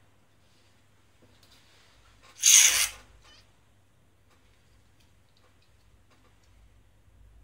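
Faint clicks of small plastic mold parts being handled and fitted together. About two and a half seconds in, one loud burst of hissing noise lasts about half a second.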